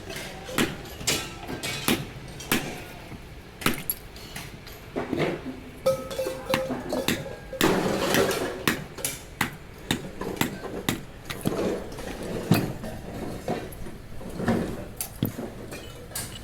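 Irregular metallic knocks and clinks, several a second, some ringing briefly: metal being struck and handled, as in hammering apart scrap.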